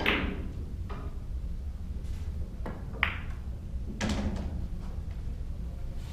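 Pool balls on a billiards table: a sharp clack of the cue ball struck at the start and another about three seconds in, with lighter ball clicks between and a duller knock about four seconds in. A steady low room hum runs underneath.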